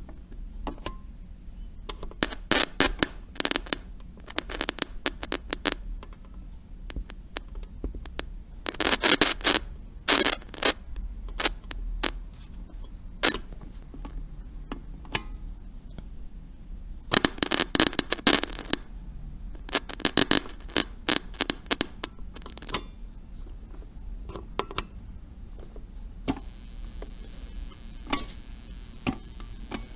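Walkie-talkie static: irregular crackles, clicks and short hissing bursts of radio noise, coming in bunches a few seconds apart, over a faint low hum.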